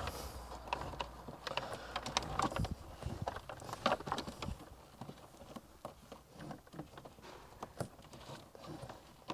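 Irregular light clicks, taps and rustles of a wiring cable and its connector being fed through the plastic dashboard behind the glovebox and knocking against the trim.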